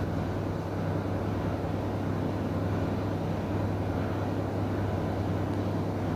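Steady low electrical hum with a hiss beneath it, unchanging throughout, with no ticks or other events.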